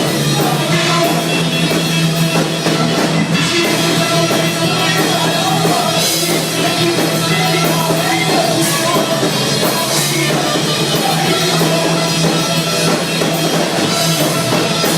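Live rock band playing, with drum kit and cymbals, a held bass note and possibly sung vocals, loud and steady throughout.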